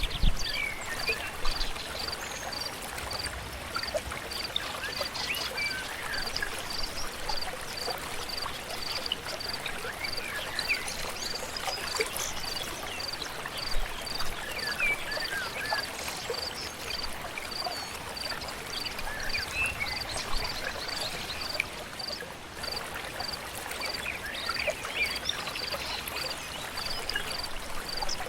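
Forest stream flowing steadily, with birds chirping here and there. Over it, a high pip repeats evenly, about three times every two seconds.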